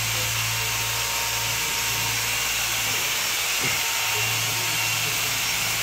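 A power tool running steadily: an even drone with a low hum and a hiss above it.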